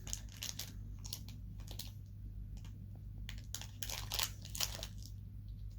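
Plastic wrapper crinkling and crackling as small hands struggle to tear open a tightly sealed toy package, in a run of irregular sharp crackles.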